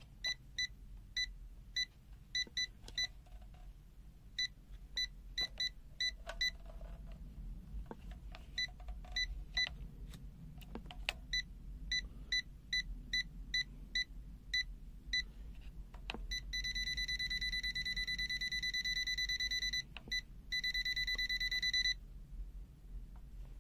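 Multimeter's non-contact voltage (NCV) detector beeping: short high-pitched beeps at irregular intervals, then a steady continuous beep for several seconds near the end, broken once by a short gap. The detector only sounds intermittently near the live wire, a sign of the weak NCV sensitivity the owner remarks on.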